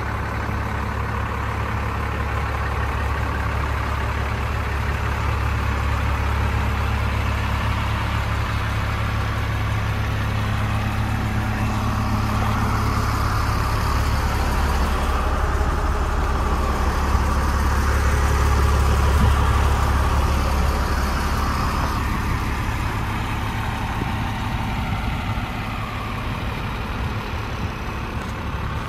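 A parked Freightliner FL70 reefer box truck running at a steady diesel idle, slightly louder about two-thirds of the way through.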